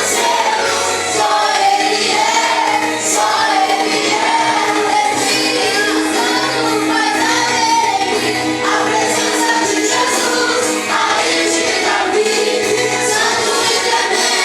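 Christian worship song sung by several voices together over instrumental accompaniment with held bass notes.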